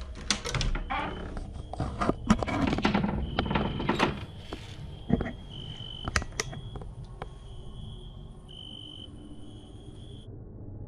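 Rustling and a few sharp clicks over the first half. Then a cricket chirps in a high, steady trill that breaks off and resumes several times and stops abruptly near the end.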